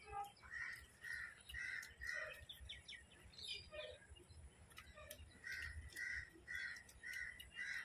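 Faint crow cawing: two runs of four or five quick caws, about two a second, with a pause of a few seconds between them.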